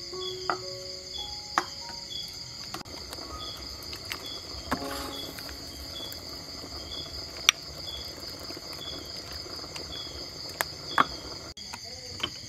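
Night insects trilling steadily, with a short high chirp repeating about twice a second. A few sharp clinks of a ladle and spoon against the pot and bowl. Soft background music notes fade out about two seconds in.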